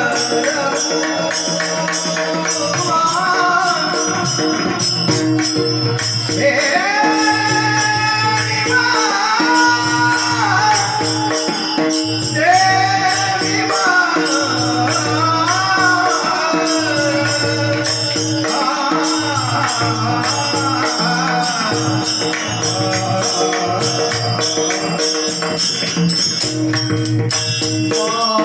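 Marathi devotional bhajan singing: a solo voice sings long, ornamented gliding phrases over steady held accompanying notes. A drum keeps a regular beat underneath, and small hand cymbals clash quickly and continuously.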